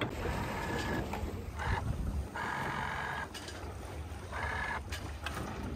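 Water rushing along a Bayfield 29 sailboat's hull under sail, swelling and fading every second or so, over a low wind rumble on the microphone.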